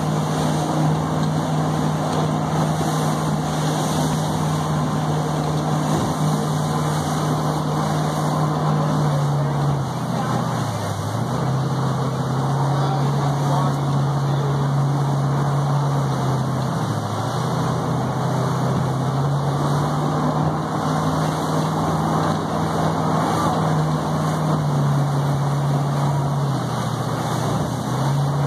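Boat motor running at speed, a steady drone that briefly drops in pitch three times, over the rush of the churning wake.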